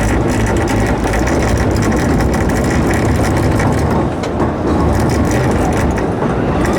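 A steam train under way: the steady rumble and rattle of carriage wheels running on the rails, with light clicking throughout.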